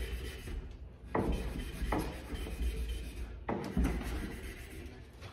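Irregular rubbing and scraping strokes on a copper water supply pipe, cleaning paint off it to prepare it for soldering.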